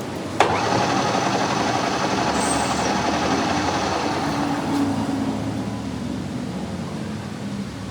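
A workshop machine switches on with a sharp click and runs steadily for several seconds, easing off slightly near the end.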